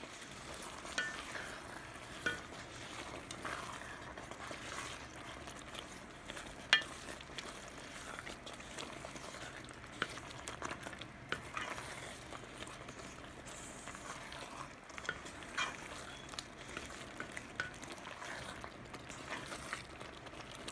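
Utensil stirring a pot of anchovies in tomato sauce, with a low steady sizzle from the cooking sauce and scattered clinks of the utensil against the pot.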